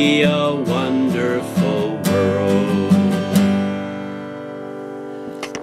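Steel-string acoustic guitar strummed under a man's singing of the song's closing line. The song ends on a final strummed chord about three and a half seconds in, which rings and slowly fades, with a couple of faint clicks near the end.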